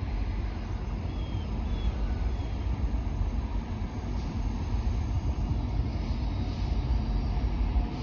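Low, steady rumble of an approaching diesel freight train that is still out of sight, with a few short bird chirps in the first seconds.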